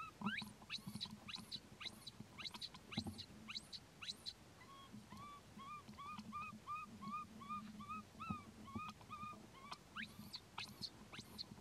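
High, thin animal calls: quick falling chirps in rapid succession, giving way about five seconds in to a run of short rising-and-falling calls at about two a second, then quick chirps again near the end, over a faint steady low hum.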